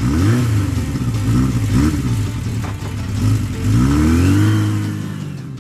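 Motorcycle engine revved in several short throttle blips, then one longer rev about two thirds through that holds and fades away near the end.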